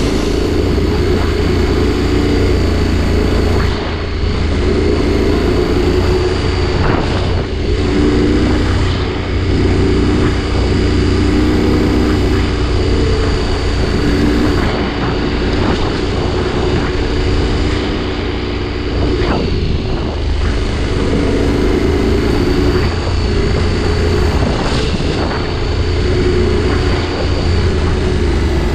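Adventure motorcycle's engine running at a steady cruise on a rough dirt road, its pitch wavering a little with the throttle, with wind rush and a few knocks from the tyres and suspension over the uneven surface.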